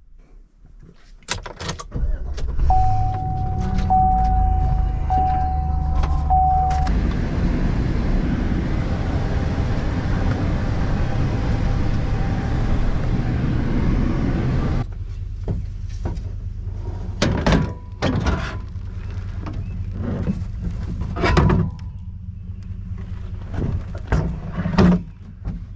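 A vehicle engine starts up about two and a half seconds in while a warning chime beeps four times. The engine then runs louder for several seconds before settling into a lower steady drone as the vehicle drives, with a few knocks and clicks.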